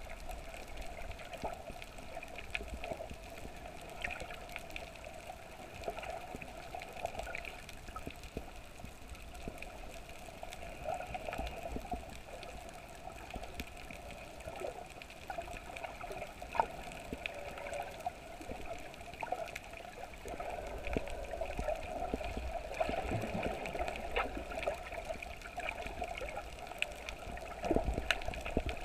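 Underwater sound through a GoPro's waterproof housing while snorkeling over a reef: a muffled, steady water hiss and rumble with scattered faint clicks and crackles.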